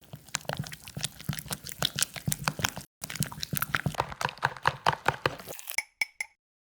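Beaten egg seasoned with salt and chili powder being stirred with a small utensil in a tiny bowl: quick, irregular clicking and tapping that breaks off briefly midway and ends in a few scattered taps.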